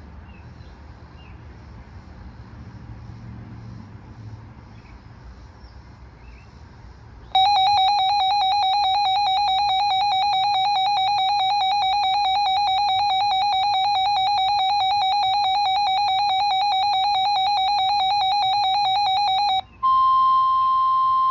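A RadioShack 12-254 weather radio's alert alarm: after a quiet stretch, a loud, fast-pulsing electronic beep starts about seven seconds in and sounds steadily for about twelve seconds, signalling a received warning. Near the end it gives way to the NOAA Weather Radio warning alarm tone, a single steady beep at a slightly higher pitch.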